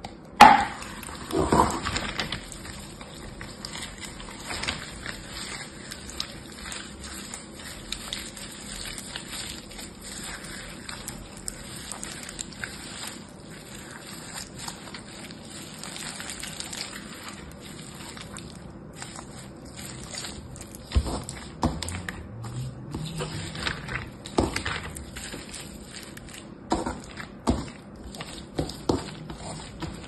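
Foam-bead slime (floam) squeezed and kneaded by hand, giving a steady run of small crackles and clicks, with louder separate pops from the beads in the last third. A sharp click of a clear plastic tub about half a second in.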